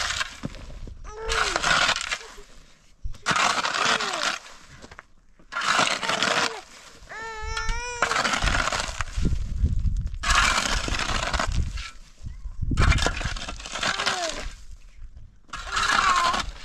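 Steel shovel blade scraping and digging into dry, stony soil and rubble, one rasping stroke about every two seconds.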